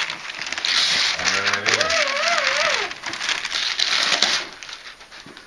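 Wrapping paper tearing and crinkling as a Christmas present is unwrapped, dying away a little over four seconds in. A voice with a wavering, sing-song pitch rises over it for about a second and a half near the middle.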